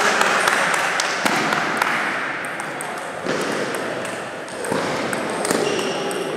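Table tennis balls clicking irregularly off tables and bats, over a steady hubbub of a large sports hall. The clicks come thick in the first couple of seconds and thin out after.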